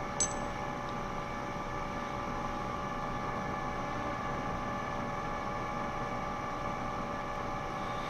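Steady machine-shop background hum with several steady tones, and one short, light metallic click about a quarter second in.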